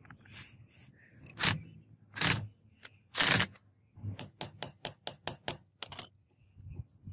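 Three short hisses of an aerosol spray can sprayed into the rusted switch and brush housing of an angle grinder, the last one longest. Then a quick run of about eight sharp scrapes and clicks as a metal rod picks rust and grime out of the housing.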